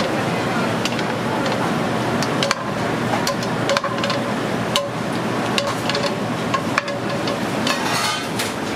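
Metal utensils clicking and clinking against a steel sauté pan and a ceramic plate as sauce is spooned out, a dozen or so sharp irregular knocks. Under them is the steady background noise of a commercial kitchen.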